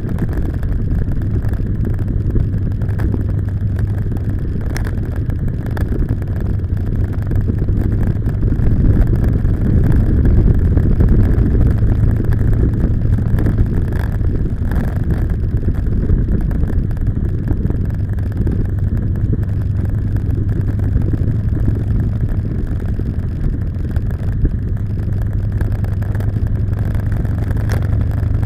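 Motorcycle engine running steadily while riding, a low drone that swells a little for several seconds in the middle.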